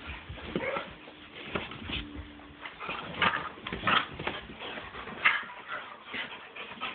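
Several dogs play-fighting on a bed: irregular scuffling and knocks, with a brief low dog vocalisation about two seconds in.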